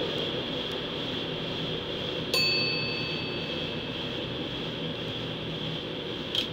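NS Mat '64 electric train running with a steady rumble and hiss as it pulls into an underground station on arrival. About two seconds in, a sudden high metallic ring fades out over a second or so, and a brief squeal comes near the end.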